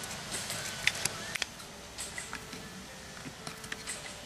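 Light handling noise of wires and small parts: a few sharp clicks about a second in, then scattered faint ticks and rustles.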